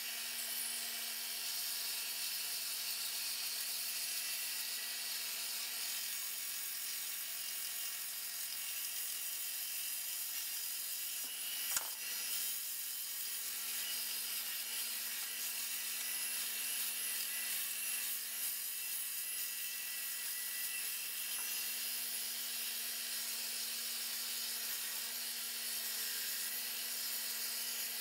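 Bench belt sander running steadily, its abrasive belt rubbing the varnish off a wooden hammer handle. There is one sharp tap about halfway through.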